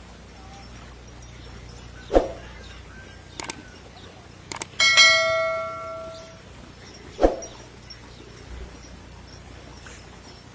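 YouTube subscribe-button animation sound effects: a swish about two seconds in, two pairs of mouse clicks, then a bright notification-bell ding, the loudest sound, ringing out for about a second and a half, and another swish about seven seconds in.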